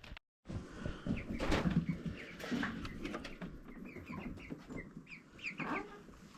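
Chickens clucking, with many short, repeated calls.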